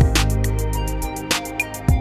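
Instrumental background music: sustained tones over a beat of sharp percussive hits.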